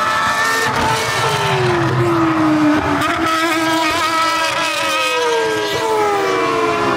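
Former Ferrari Formula 1 cars at high revs passing one after another, each high-pitched engine note sliding down in pitch as the car goes by.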